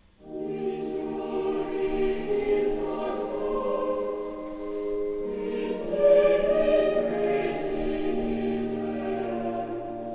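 Voices singing together in harmony in held, slow notes, typical of a sung chant or hymn. The singing begins abruptly at the start and swells louder about six seconds in.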